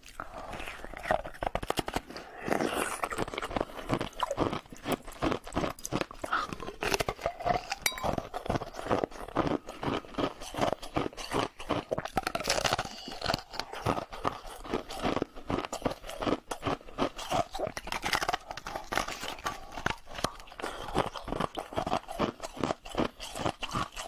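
A person biting and chewing a solid block of ice, the ice crunching and cracking between the teeth in rapid, irregular bites.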